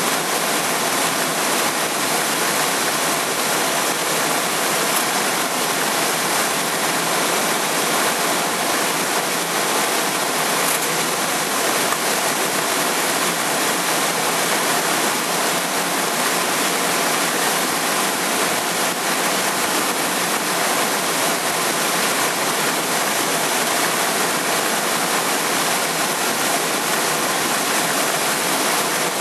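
Steady rushing wind noise over the microphone, even and unbroken, with no clear engine tone.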